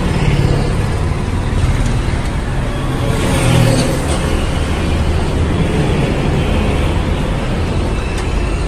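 Road traffic noise: a steady rumble of vehicles going by, a little louder about three and a half seconds in.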